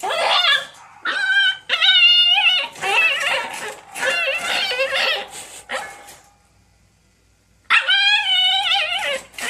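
Husky puppy whining in a string of high, wavering cries, about seven short ones in quick succession, then a pause and one longer cry near the end.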